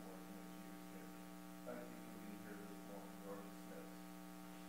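Steady electrical mains hum from the sound system, with faint, indistinct voices murmuring in the room behind it.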